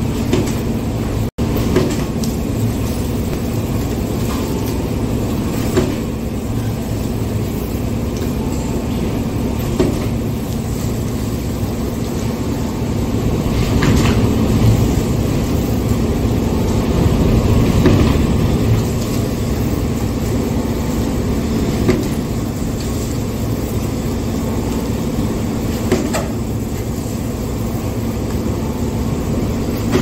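Heavy-duty 45" x 65" platen die cutting and creasing machine with air clutch and brake running steadily, with a sharp knock about every four seconds as the press cycles through each sheet of corrugated board.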